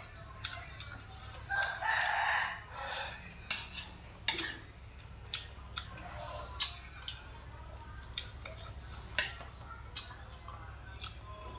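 A rooster crows once, starting about one and a half seconds in and lasting over a second. Around it come sharp clicks of a spoon and chopsticks against a stainless steel meal tray.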